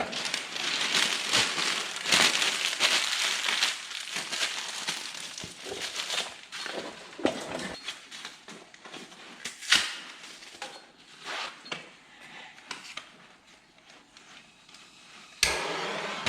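Newspaper being crumpled by hand to start a fire, a dense crinkling for the first several seconds, then scattered clicks and knocks. Near the end comes a sudden loud thump, followed by a steady rushing noise.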